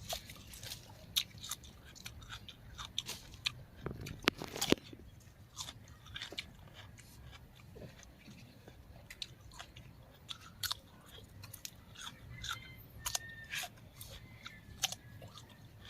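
Close-up chewing and crunching of raw vegetables, with a run of short crisp bites. The loudest cluster of crunches comes about four to five seconds in, followed by softer, scattered chewing clicks.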